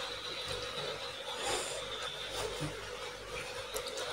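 Faint rustles and small clicks of fingers picking at a fried catfish on a lettuce-lined plastic tray, over a steady background hum.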